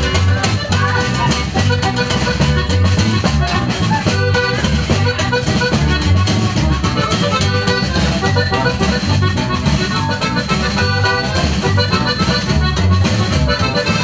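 Norteño band playing live dance music: an accordion carries the melody over a bass line pulsing on a steady beat.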